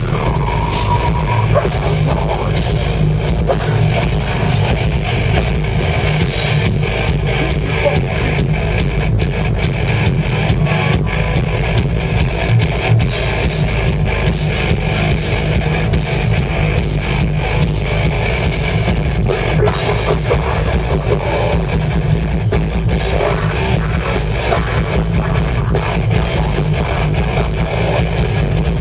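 Live heavy rock band playing loud and without a break: electric guitars and a drum kit.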